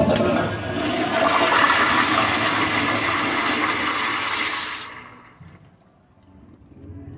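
Commercial toilet with an exposed flushometer valve flushing: a loud rush of water starts suddenly, lasts about five seconds, then falls away to a faint trickle.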